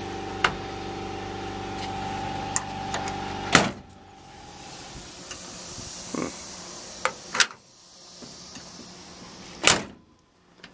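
Steel door of a 1977 Chevy Blazer, freshly rehung on new hinge pins and bushings, being opened and slammed shut twice, with latch clicks in between; the last slam comes near the end. A steady mechanical hum runs for the first few seconds and then stops.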